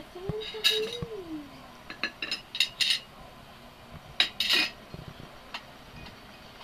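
Ceramic cup and metal cutlery clinking against a china plate as the plate is handled and lifted, a few separate clinks with a short ring. A brief squeal that holds its pitch and then falls comes near the start.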